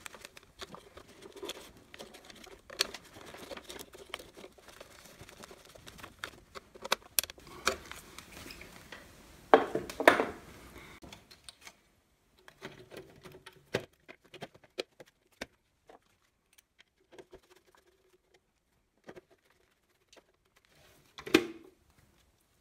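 Small clicks and scrapes of a screwdriver working the terminal screws of circuit breakers and of wires being handled, then the plastic covers of the breaker panel being fitted and snapped shut, with a few sharp clicks and a louder clack about ten seconds in.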